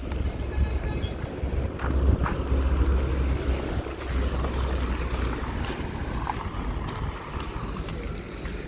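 Passing road traffic with wind rumbling on the microphone.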